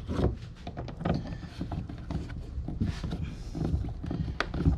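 Irregular clicks, knocks and scrapes of a stubby hand screwdriver driving screws into a through-hull wiring fitting set in a plastic kayak hull, with one sharper click near the end.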